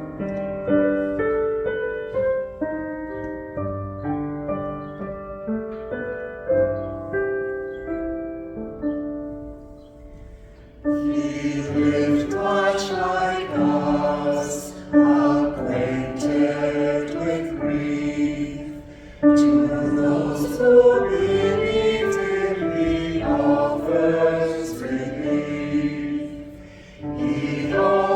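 A piano plays a slow hymn phrase alone, then about eleven seconds in a choir begins singing the hymn with the piano accompanying, pausing briefly between lines.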